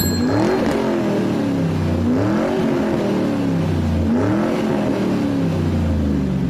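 An engine revved in repeated blips about every two seconds, each rising quickly in pitch and then dropping slowly back.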